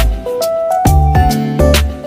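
Background music: a melody of held notes over a strong bass line, with a steady drum beat.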